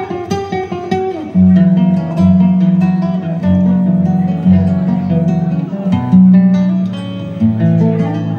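Guitar music: a run of quick plucked notes, then about a second and a half in, louder held low notes that step through a melody.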